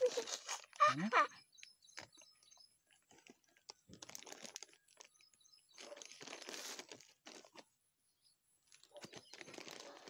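Plastic polybag crinkling and rustling in several short bursts as a rooted lemon cutting is potted into it with soil. A brief voice is heard about a second in.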